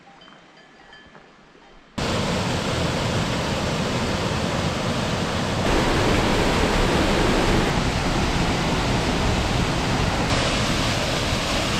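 Waterfall and cascading mountain stream: a loud, steady rush of falling water that starts abruptly about two seconds in, after a short stretch of faint outdoor ambience.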